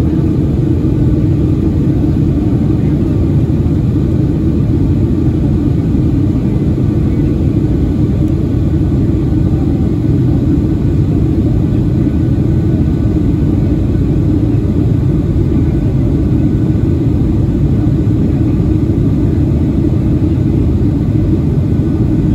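Steady low rumble of cabin noise inside a Boeing 737-800 in flight, from its engines and the air around the airframe, unchanging throughout.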